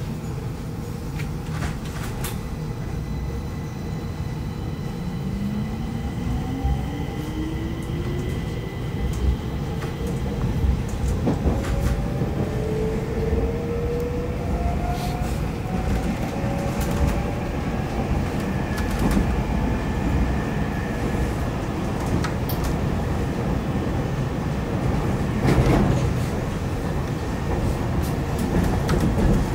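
Stockholm metro train running, heard from inside the car: a steady low rumble with scattered sharp clicks from the track. Over it, a faint whine climbs slowly in pitch for about ten seconds, as the traction motors do when the train picks up speed.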